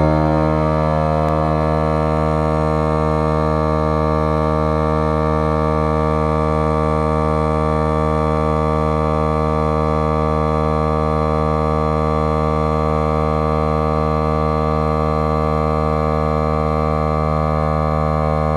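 Milwaukee M18 cordless tire inflator's compressor running steadily at a constant pitch, pumping a tire up toward its set 30 PSI.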